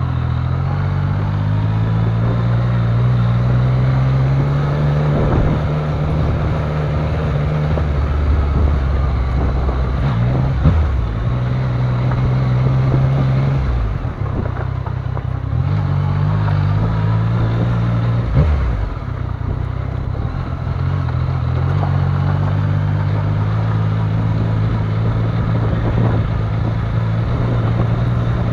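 Yamaha Niken GT's three-cylinder engine running at low speed, its pitch stepping up and down several times with the throttle, over a rough noise of tyres and riding. A few short thumps come through.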